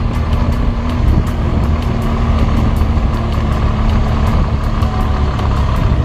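BMW R1200GS flat-twin engine running under way, heard as a heavy steady low rumble with a faint constant tone. Rapid irregular ticks run over it.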